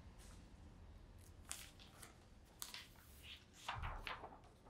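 Faint rustling of paper sheets, a few brief rustles and scrapes as printed pictures are shuffled and lifted from a desk.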